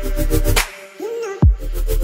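Background music with deep bass drum hits about a second apart and a short gliding synth note. The bass drops out briefly near the middle.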